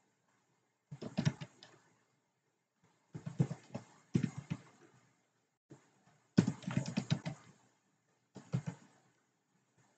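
Typing on a computer keyboard: about five short bursts of rapid keystrokes, with pauses of a second or more between them.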